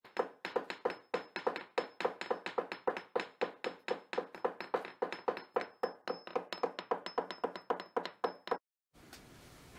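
A fast, even series of sharp knocks or taps, about four a second, that stops suddenly about eight and a half seconds in.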